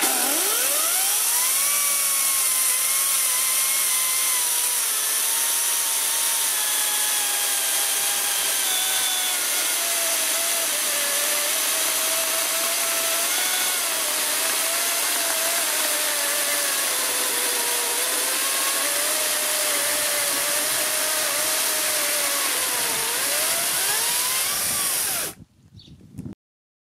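Parkside Performance PPKSA 40-Li A1 cordless brushless chainsaw spinning up and cutting through a log. Its whine sinks steadily in pitch as the chain bogs into the wood, rises again as it cuts through near the end, then stops suddenly about 25 seconds in.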